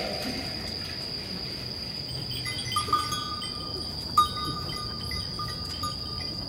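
Crickets trilling in a steady high chorus, with a few short, soft ringing tones from about three seconds in.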